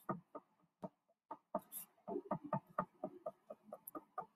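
Gray wax crayon scratching on a sheet of paper in short back-and-forth strokes, a few a second, with a brief pause about a second in.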